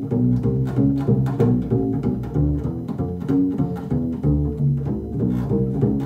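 Recorded double bass sample playing a line of low notes, about three notes a second.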